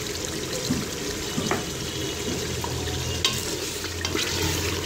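Thick beef curry sizzling in an aluminium pressure cooker pot while a wooden spoon stirs it. The spoon knocks lightly against the pot a few times.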